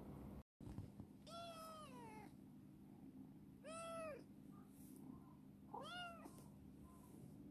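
Young cat meowing three times in short calls, the first sliding down in pitch.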